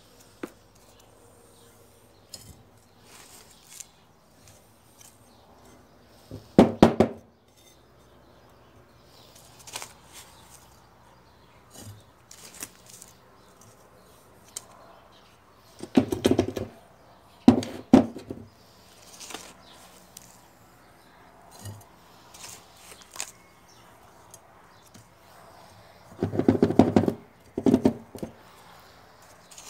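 A plastic scoop digging potting mix out of a plastic basin and pouring it into small clay pots, with several short, louder bursts of scraping and rattling soil and quieter handling sounds between them.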